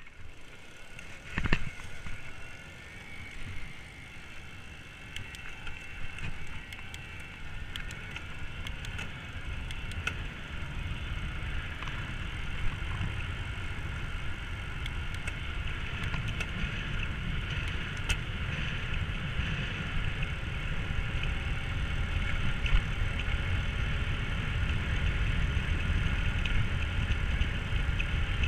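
Electric mountain bike with a Bafang BBS-02 mid-drive motor riding along a street: wind noise on the microphone and tyre rumble grow steadily louder as it gathers speed, over a faint steady whine. Two sharp knocks come near the start.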